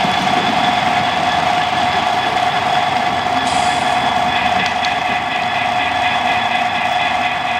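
Model train DCC sound decoders playing steady recorded locomotive running sounds through their small on-board speakers, with a fixed, unchanging hum.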